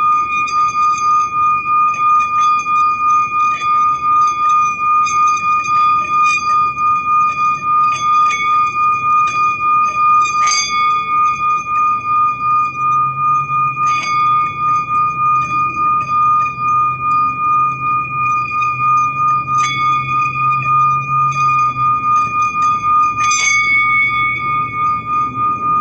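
Metal singing bowl being rimmed with a wooden striker, giving one sustained ringing tone that wavers about twice a second. A few light clicks of the striker against the rim sound over it.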